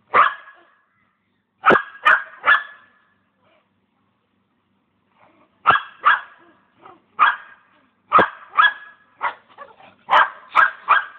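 Dog barking at a cat in short barks: one, then a quick run of three, a pause of about two and a half seconds, then a steady string of barks, roughly two a second.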